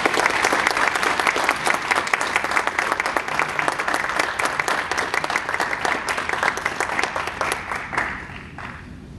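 A small audience applauding, many hands clapping together, dying away about eight seconds in.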